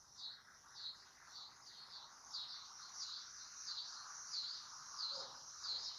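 Faint, regular high chirping from a bird, about two short dipping chirps a second, repeated steadily.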